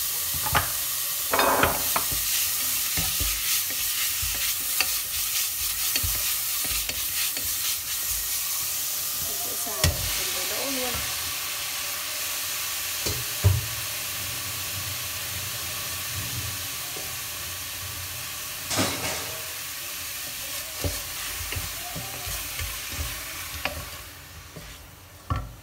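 Beef sizzling as it stir-fries in a stainless steel pot, stirred with a wooden spatula that knocks and scrapes against the pot. About halfway there is a heavy knock as blanched green beans are tipped in from a metal strainer, and the sizzle dies down near the end.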